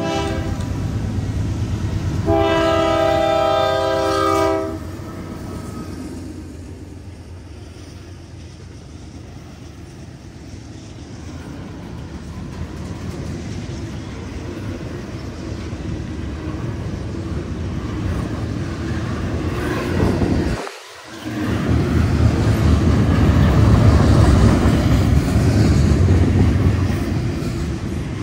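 Freight locomotive horn sounding a multi-note chord, a short touch and then a long blast of about two seconds; the uploader guesses it is a Nathan K3LA horn on a GE AC44C6M. The horn is followed by the steady rumble of a long freight train approaching and passing, which cuts out abruptly for a moment about twenty seconds in and then comes back at its loudest.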